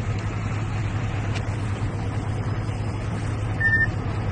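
A steady low engine hum over even outdoor noise, with one short high beep about three and a half seconds in.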